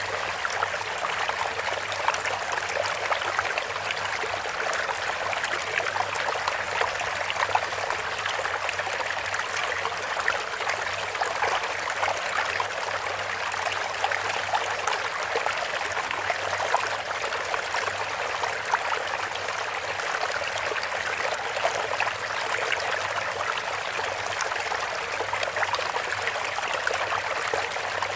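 Steady running water, trickling and splashing continuously, with many small droplet-like clicks and an even level throughout.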